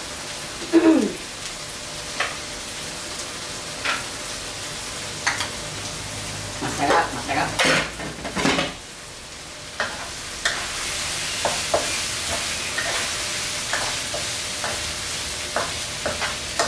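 Chili spice paste with lime leaves sizzling in hot oil in a frying pan as a spatula stirs it, with repeated scrapes and taps against the pan and a brief run of harder strokes about halfway through. The sizzle grows stronger about ten seconds in.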